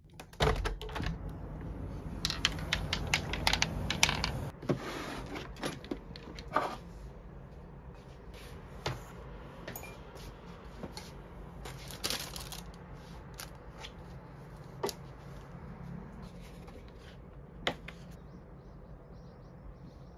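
Papers and small objects being handled on a desk: rustling paper with a quick run of clicks and light knocks as things are picked up and set down. It is busiest in the first seven seconds or so, then thins to scattered clicks.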